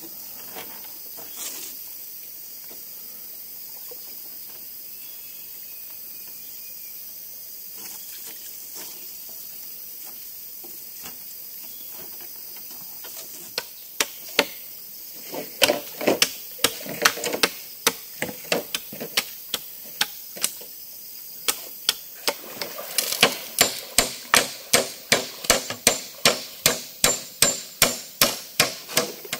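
Repeated sharp knocks of a hand tool striking, scattered from about halfway through, then a steady run of blows a little over two a second near the end.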